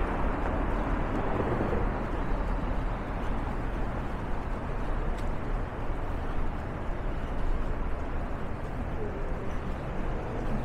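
Downtown street ambience: a steady rumble of traffic.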